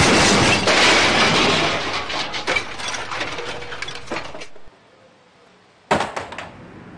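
An offscreen crash: a loud clatter of smashing and breaking with many sharp hits, fading out over about four seconds. About six seconds in, a loose bicycle wheel falls over with a short metallic rattle.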